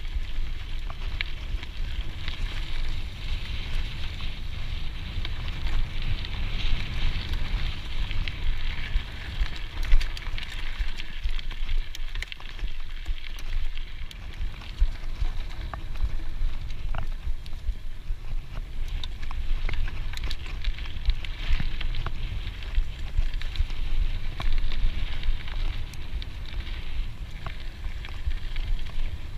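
Scott Genius full-suspension mountain bike rolling along dirt singletrack: steady tyre noise on the dirt with a low rumble of wind and vibration, and scattered sharp clicks and rattles from the bike.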